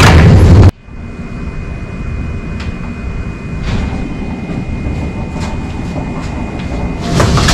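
Loud bass-heavy background music cuts off under a second in. It leaves a low steady rumble with a faint high steady whine and a few light clicks, like a car cabin on the move. The music comes back near the end.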